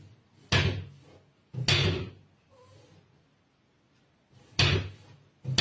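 Wooden cabinet door with glass panes banging against its frame as a cat paws at it: three sharp knocks spread over the first few seconds and a fourth near the end.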